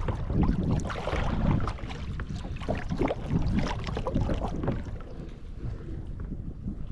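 Water splashing and sloshing at the side of a kayak as a bluefish is held in the water for release, in irregular small splashes that are busiest in the first couple of seconds, with wind rumbling on the microphone.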